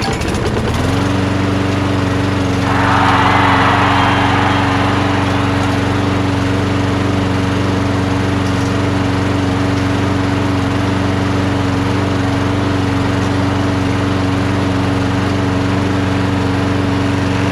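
Briggs & Stratton Quantum single-cylinder mower engine starting up after priming and running at a steady speed, smooth rather than shaking. A loud rush of noise rises over it for about two seconds, a few seconds in. The engine keeps going on fuel from its own tank, a sign that the carburetor is clean enough to work.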